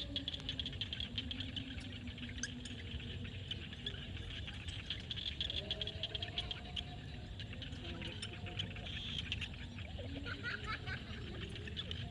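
Evening chorus of frogs and insects in a field: a dense high trilling with many quick clicks, over which a few lower, drawn-out calls waver in pitch.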